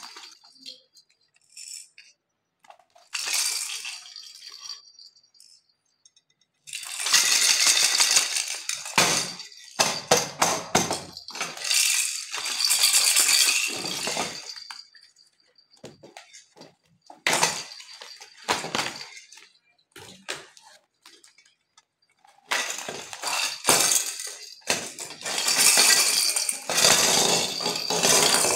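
Clear plastic packaging crinkling in repeated bursts of a second or more, with pauses between them, as a bag of plastic baby rattles is handled and opened. The hard plastic rattles clink and rattle against each other.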